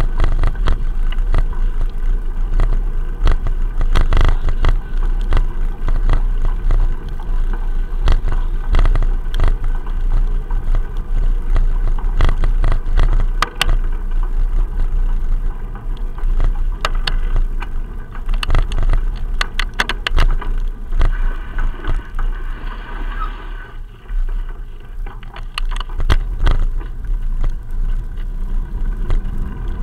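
Muffled rumble and wind buffeting picked up inside an action camera's waterproof case mounted on a moving bicycle, with frequent knocks and rattles as the mount jolts over bumps.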